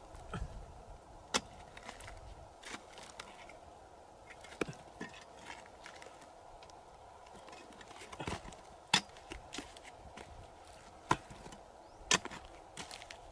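A metal-bladed digging tool chopping into dry, cracked mud and prying clods loose, heard as irregular sharp knocks and scrapes. The sharpest strikes come in the second half.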